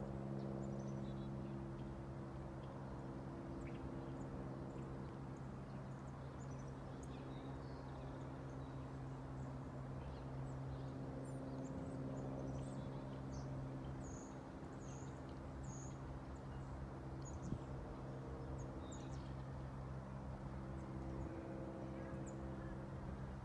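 Cessna 177 Cardinal light aircraft passing high overhead: the steady droning hum of its four-cylinder piston engine and propeller. Small birds chirp now and then.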